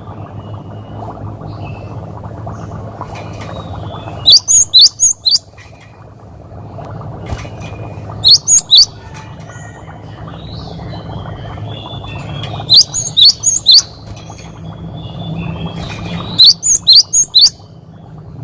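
Cinereous tit (gelatik batu) singing its 'wucit wucit' song: short phrases of three or four sharp, high whistled notes, repeated about every four seconds, over a steady low hum.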